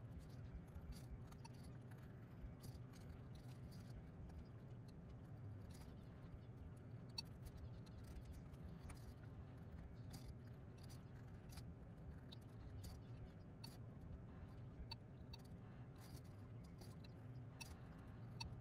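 Faint, irregular small clicks and scrapes of a carving knife cutting the outline into a thin wood board held in the hand, over a steady low hum.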